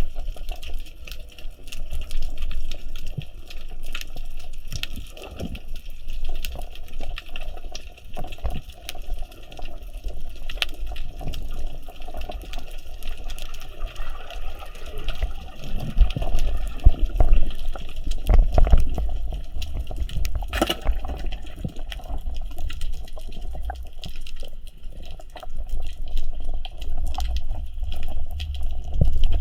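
Underwater sound from a diving camera: water movement and low rumbling, with many small sharp clicks throughout.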